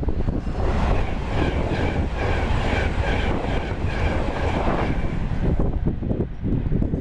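Train passing at speed: a loud rush of rail noise with faint tones that come and go, dying away about five and a half seconds in. Wind buffets the microphone throughout.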